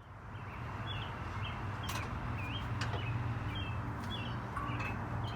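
Small birds chirping repeatedly in short, hooked calls over a steady low hum.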